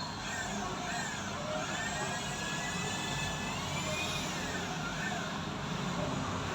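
Steady street traffic noise, with a series of high chirps that rise and fall, repeating quickly near the start and again around the middle.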